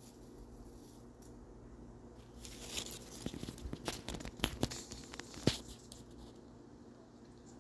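A raccoon rummaging in dry fallen leaves: a few seconds of crackling and rustling with sharp clicks, the sharpest about five and a half seconds in.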